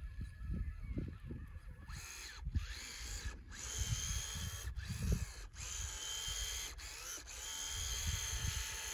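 Traxxas TRX-4 RC crawler's electric motor and drivetrain whining on snow tracks, cutting off and starting again several times as it is driven back and forth to claw itself free of deep wet snow.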